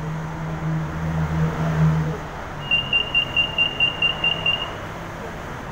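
BTS Skytrain door-closing warning: a rapid series of about ten short, high electronic beeps, roughly five a second, lasting about two seconds. Before it, a low steady hum stops about two seconds in.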